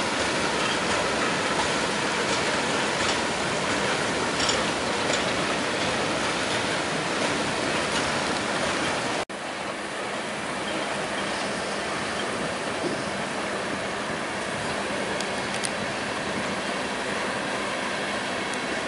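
Steady rolling noise of a freight train of tank cars passing, steel wheels running on the rails, with a few faint clicks. The sound drops out for an instant about nine seconds in and resumes a little quieter.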